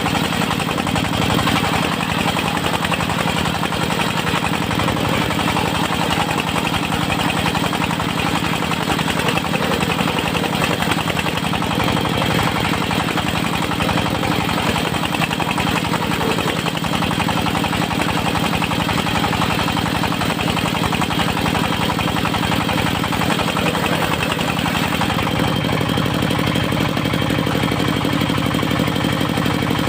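Diesel engine of a portable circular sawmill running steadily with a fast, even knock, its note shifting slightly near the end.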